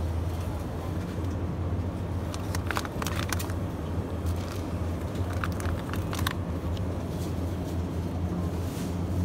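Supermarket ambience: a steady low hum from open refrigerated display cases, with a few brief clicks and rustles around the middle.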